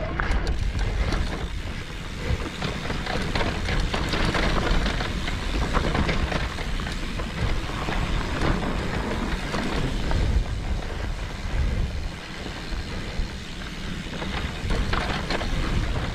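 Electric mountain bike climbing a dirt trail: tyres rolling over dirt and rock and the bike rattling, with many short clicks over a steady low rumble.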